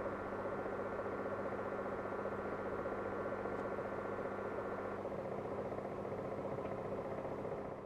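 Panasonic F-VC70XJ humidifying air purifier running with its humidifying mechanism turning, giving a steady hum with a fast buzzing rattle carried through the cabinet. This is an abnormal noise, which the owner takes for an initial defect in the unit. A few faint higher tones drop out about five seconds in.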